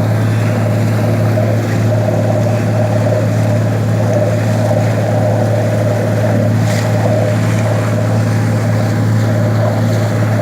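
Boat engine running at a steady speed, a constant low drone with a hiss of water and wind over it.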